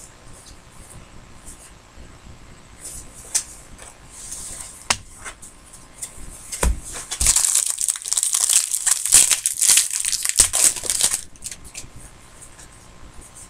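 A few knocks from handling cards and boxes, then a few seconds of loud crinkling and tearing about halfway through as a trading card pack's wrapper is torn open.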